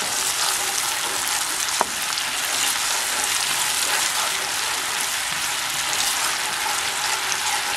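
Garlic and onion sauce sizzling steadily in a frying pan as it is stirred with a wooden spatula and reduces to thicken. A single sharp knock about two seconds in.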